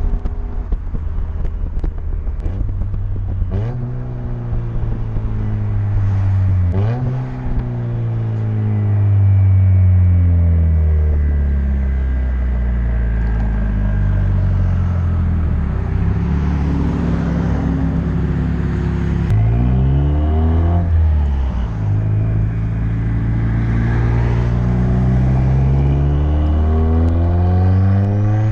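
Mazdaspeed3's turbocharged 2.3-litre four-cylinder, with a big BNR S4 turbo, external wastegate and a muffler-and-resonator-delete exhaust, being driven. The engine note climbs quickly several times under throttle and falls away slowly between the pulls.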